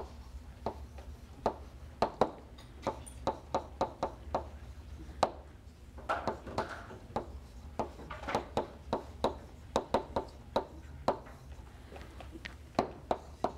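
Chalk writing on a blackboard: irregular sharp taps, about two or three a second, with a few short scratchy strokes, over a steady low room hum.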